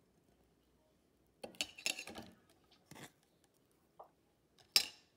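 A spoon scraping ground paste into a cooking pot: a short cluster of scrapes about a second and a half in, a couple of light knocks, and a sharp clink of the utensil against the pot near the end.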